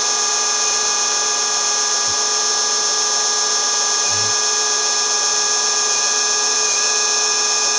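SDS drill in rotary-only drill mode, running steadily with an even motor whine as its wood bit bores into a timber sleeper.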